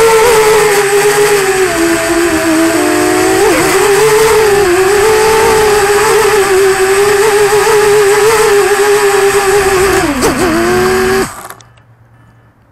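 QAV210 racing quadcopter's brushless motors and propellers whining, the pitch wavering with throttle. Just after ten seconds in the pitch falls as it comes down, and the motors stop abruptly about eleven seconds in as it lands.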